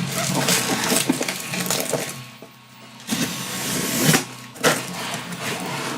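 A cardboard shipping box being opened by hand: rustling, scraping and crackling of cardboard and packaging, with a brief lull a little after two seconds in and a few sharper knocks near the end.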